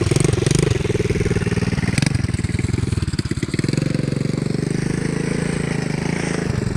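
ATV's swapped-in engine running, its speed dipping about halfway through and then holding steady, with a ticking that the riders put down to the wheel.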